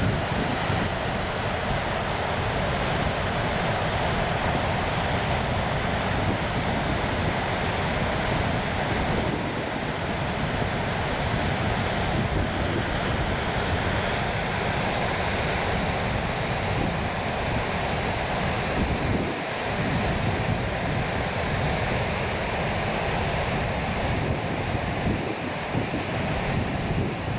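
Floodwater pouring through the open spillway gates of Pensacola Dam and churning in the river below: a steady rush of water.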